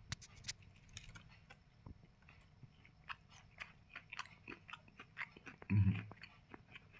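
Faint, close chewing of KFC chicken popcorn: a run of small mouth clicks, several a second, with little crunch, since the pieces have gone soft and stale. A short hum from the eater about six seconds in.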